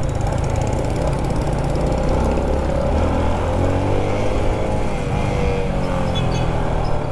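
Motorcycle engine running steadily while riding at road speed, its pitch rising and falling a little with the throttle, under a heavy low rush of wind on the microphone.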